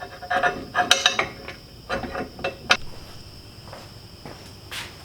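Steel tire-carrier mount parts clanking and knocking as they are fitted onto the bracket: a quick run of sharp metal knocks and clinks in the first three seconds, then only a few faint taps. A steady high insect chirr runs underneath.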